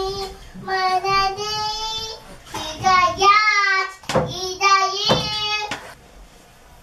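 A toddler singing wordless held notes with a toothbrush in her mouth, in about three short phrases, the middle one wavering up and down.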